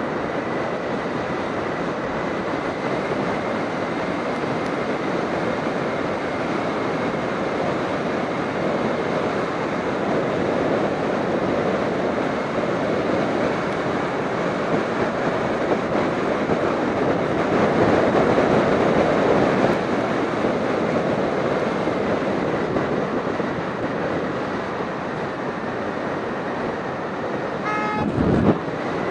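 Steady rush of wind and road noise from a motorcycle riding at speed, swelling about two-thirds of the way through. Near the end a horn gives one short toot.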